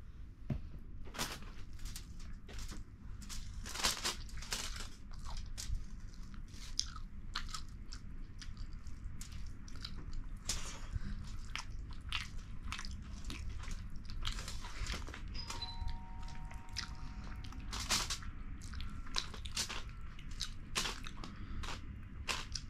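Close-up eating sounds of a mukbang: chewing, biting and crunching of rice and king fish masala curry, with many irregular sharp mouth clicks and smacks over a steady low hum.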